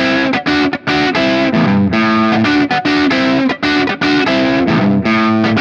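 Electric guitar on its middle pickup setting playing a chord riff: short stabbed chords with brief gaps between them, and some chords held longer.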